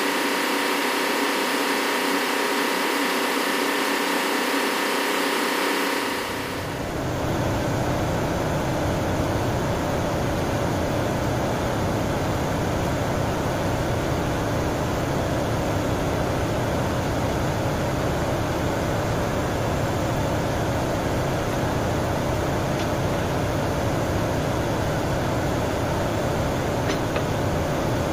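Steady, loud drone of running machinery in a ship's engine room. For the first six seconds or so it is a hum of many steady tones, and then it turns into a broad, even rumble with a deep low end.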